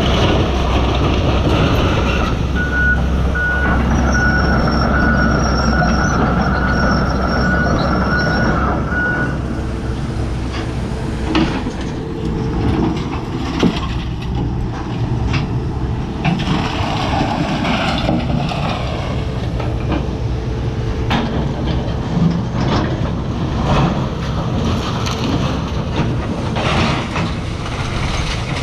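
Hitachi Zaxis 250LC-6 excavator's diesel engine running steadily under load. A reversing alarm beeps in even pulses for about six seconds near the start, then irregular knocks and cracks of demolition break in over the engine.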